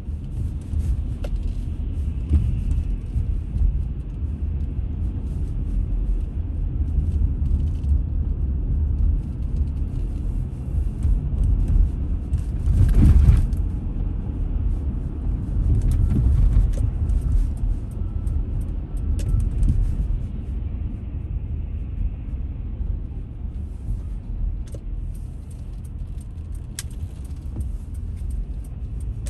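Road and engine noise of a car driving, heard from inside the cabin: a steady low rumble, with a louder swell about thirteen seconds in.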